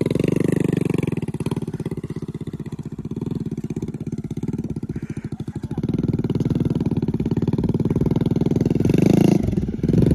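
Motorcycle engine running at low revs with steady, even firing pulses; it eases off about two seconds in and picks up again about six seconds in.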